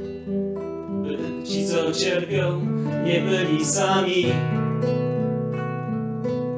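Nylon-string classical guitar being played, with a man's voice singing a phrase from about a second in until about four seconds in.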